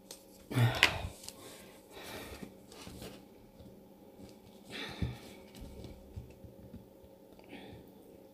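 Quiet rustling of a paper pad's card and pages being handled, with a loud wheezy sniff just under a second in from a head cold.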